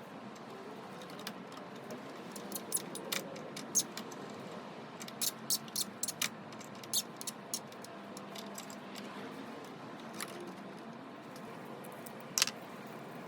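Small metal parts and hand tools being handled: a run of sharp light clicks and taps in the middle and one louder click near the end, over a faint steady hum.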